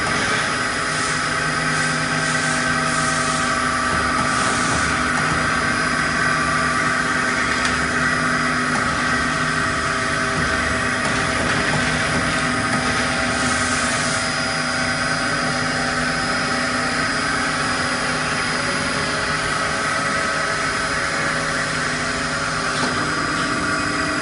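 Hydraulic vacuum cream mixer running: a steady mechanical hum made up of several constant tones.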